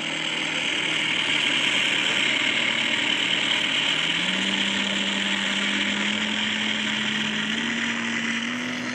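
Onboard sound generator in an electric RC Spitfire playing an imitation Rolls-Royce Merlin engine note over the steady whir of the electric motor and propeller. The engine note steps up in pitch about four seconds in and again twice near the end.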